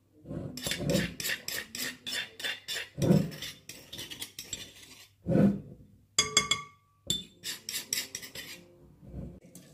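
Metal spoon clinking and scraping rapidly against a marble bowl, knocking ground saffron out of the bowl into the mixing liquid. The clinks come in quick runs of several a second, with a couple of duller knocks in between.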